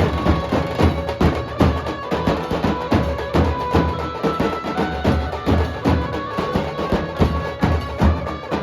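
Nasik dhol band drumming: dense, rapid drum strokes, several a second, with steady held tones sounding over them.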